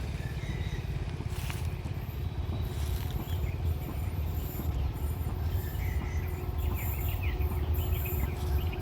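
Insects buzzing in a steady high drone, with short bird chirps clustered about six to eight seconds in, over a continuous low rumble.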